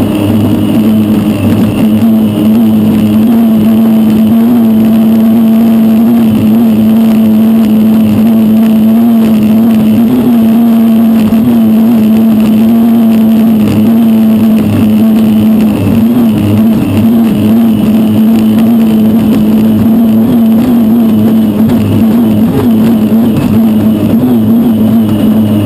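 Unlimited racing hydroplane's turbine engine running at speed, heard onboard as a loud, steady drone that holds one pitch.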